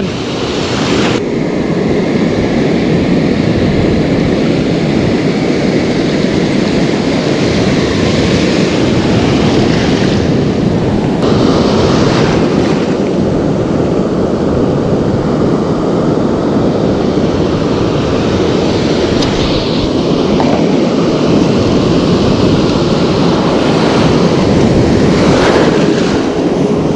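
Ocean surf breaking and washing in close by: a loud, steady rush of churning water.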